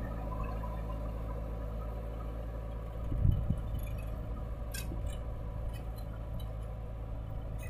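Diesel engines of a JCB 3DX backhoe loader and a farm tractor running steadily at idle while the backhoe loads soil into the trolley, with a brief low thump about three seconds in and a sharp click near five seconds.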